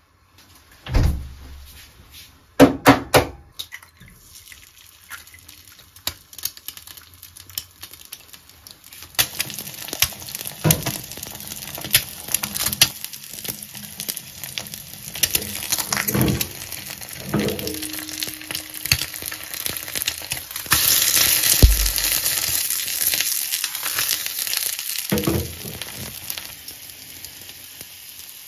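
Egg frying in oil in a small non-stick pan, sizzling that grows louder through the middle and is loudest near the end. A few sharp knocks come in the first few seconds, and scattered clicks of chopsticks against the pan run through the frying.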